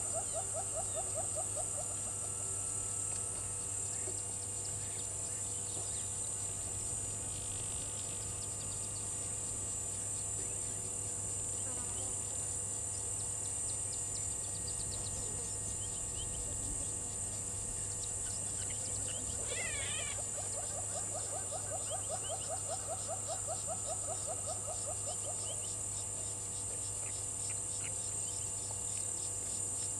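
Steady high-pitched insect chorus. A rapid pulsing trill in a lower register sounds at the start and again about two-thirds of the way through, with a short sweeping call just before the second trill.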